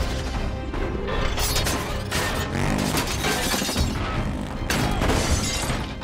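Dramatic film score with a heavy crash of shattering plate glass and tumbling debris near the end, as something huge smashes through a deli's front window.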